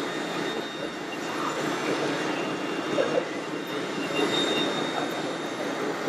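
Steady festival background hubbub mixed with a thin, steady high whine from the electric motors of radio-controlled model trucks and construction machines.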